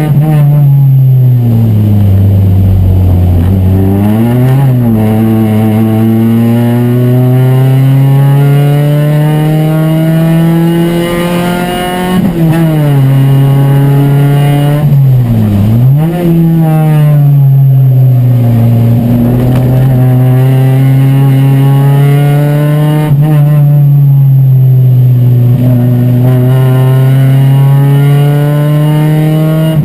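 Chevy race car's four-cylinder engine heard from inside the cabin, running hard at high revs. Its pitch climbs and levels off with the gears, with sharp dips a few seconds in and twice around the middle.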